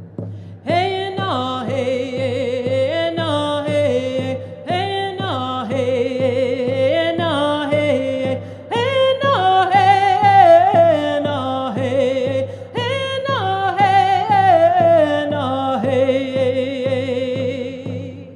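Woman singing a Navajo-language song in long, gliding held phrases, over a steady low accompaniment.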